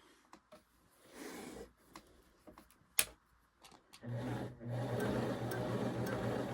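A few light clicks, one sharp click about three seconds in, then a Singer Genie 353 sewing machine starts about four seconds in and runs steadily with an even hum and a fast, regular ticking of its mechanism. The machine has just been cleaned and oiled.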